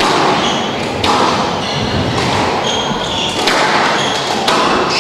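Squash rally: the ball struck by rackets and hitting the walls in several sharp knocks, with short high squeaks of court shoes on the wooden floor between them.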